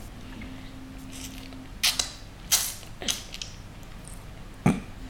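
A pet chewing clementine pieces: several sharp, wet chomps and crunches at irregular intervals.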